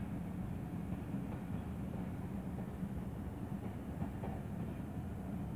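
Passenger coaches rolling past close by as the train departs: a steady rumble of steel wheels on the rails, with a few faint clicks.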